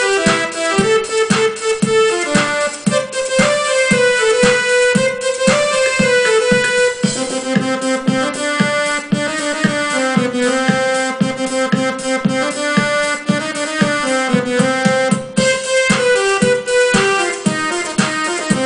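Electronic keyboard playing a lively melody in sustained notes over a steady, fast beat.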